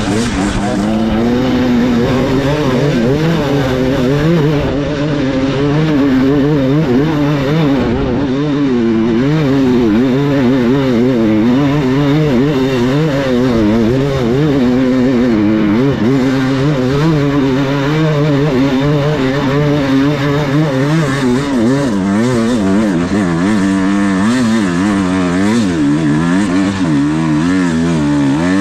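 Dirt bike engine revving up and down continuously, its pitch rising and falling in quick waves as the throttle is worked.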